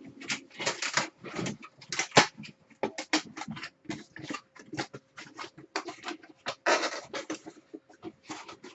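Trading cards being handled and sorted by hand: quick irregular rustles, slides and taps, with one sharper tap about two seconds in.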